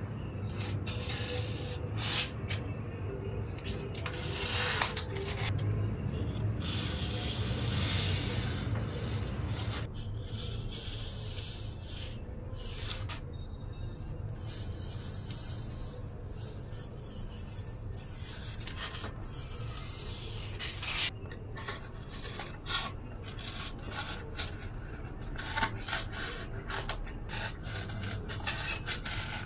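Irregular scratching and rubbing strokes of hand craft work on craft materials, with a steady low hum underneath.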